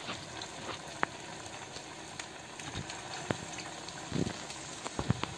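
Jackfruit seed vadas deep-frying in hot coconut oil: a steady bubbling sizzle with scattered sharp pops, several close together near the end.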